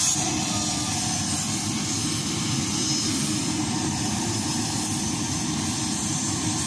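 Steady aircraft engine noise from the airliner being boarded: a low rumble with a faint high whine.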